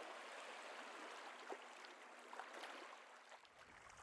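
Faint trickling and lapping of shallow water, with small scattered ticks. A low rumble comes in near the end.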